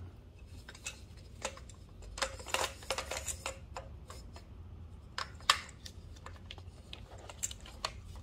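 Irregular plastic clicks and taps as the handle and clamp parts of a Wild Badger Power 40V string trimmer are handled and fitted onto its metal shaft, the sharpest click about five and a half seconds in.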